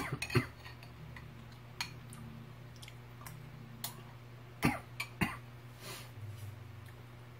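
Metal spoon clicking and scraping against a ceramic bowl of hardtack crackers in milk, with chewing: several short, sharp clicks, the loudest near the start and a cluster about two-thirds through. A steady low hum runs underneath.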